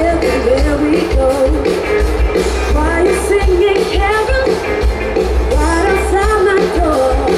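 A live rock band plays: a singer carries the melody over electric guitar, bass guitar and drums with a steady beat.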